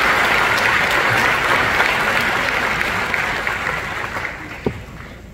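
Theatre audience applauding, the clapping dying away in the last second or two, with a single short knock near the end.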